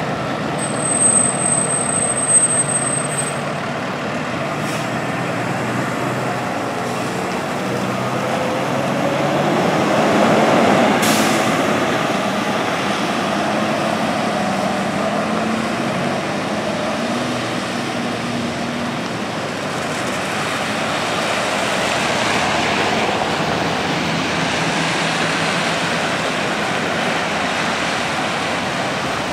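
Diesel engines of a fire engine and a rescue ambulance pulling out and driving away, with tyres hissing on a wet road. A short sharp burst of air-brake hiss comes about eleven seconds in.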